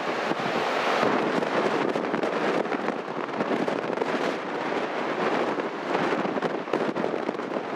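Nor'easter surf breaking heavily on the beach under strong wind: a dense, steady rush of water and wind, full of short crackles from gusts buffeting the microphone.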